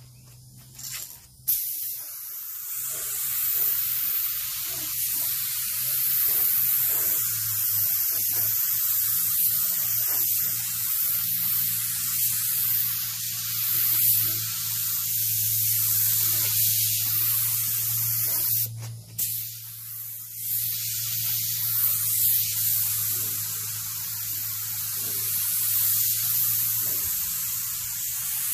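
Harbor Freight gravity-feed spray gun, set at 20 psi, hissing steadily as it sprays clear coat, with one short break about two-thirds of the way through where the trigger is let go. A steady low hum runs underneath.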